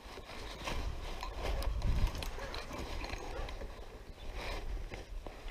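Irregular splashing and knocking in a shallow stream, over a low rumble of wind on the microphone.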